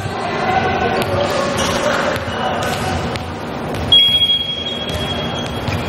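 A referee's whistle blown once about four seconds in: a single steady high blast that starts sharply and holds for nearly two seconds. Before it, players' voices call out.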